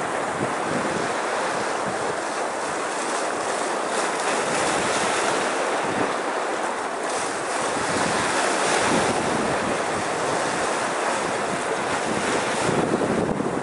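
Small sea waves washing in and breaking around shore rocks: a continuous rush of surf that swells as each wave comes in, louder near the end as a wave splashes over a boulder. Wind is on the microphone.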